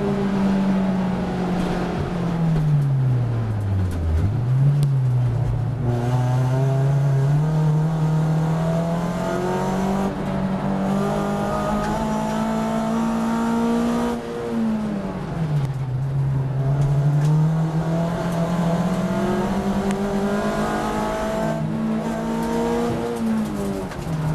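In-car sound of a VW Lupo race car's engine driven hard: the revs fall under braking for a slow corner, with a short blip about four seconds in, then climb steadily as it accelerates out. The revs drop sharply at a gear change about fourteen seconds in, climb again, and fall under braking near the end.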